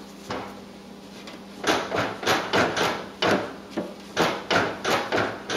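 A quick run of sharp knocks, about three a second and starting about a second and a half in, from a hand working the newly fitted deck belt against the pulleys and steel deck of a Grasshopper SL61 mower deck to check its fit. A steady low hum runs underneath.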